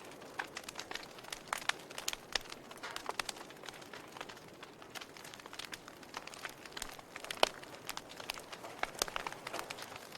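Wood fire burning in a fireplace, crackling with irregular sharp pops and snaps over a soft hiss. One pop, about seven seconds in, is louder than the rest.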